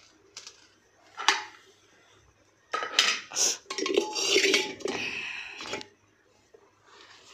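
Metal cookware clanking: a sharp clink about a second in, then a few seconds of clattering and scraping of steel pots with a brief ring, starting near the middle.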